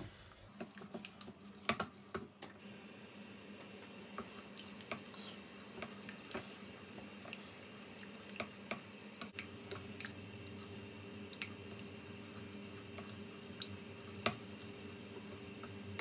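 Wooden spoon stirring a thick mix of melting margarine, dried fruit and sugar in a stainless steel pan: soft squelching, with irregular light knocks of the spoon against the pan, over a faint steady hiss.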